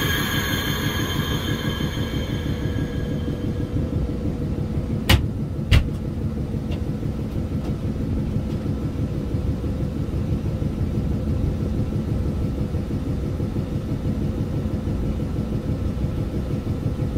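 Inside the cab of an EF63 electric locomotive: compressed air hissing out of the automatic brake valve as the brake is released, fading away over the first few seconds, under a steady low rumble as the locomotive rolls off. Two sharp knocks come about five and six seconds in.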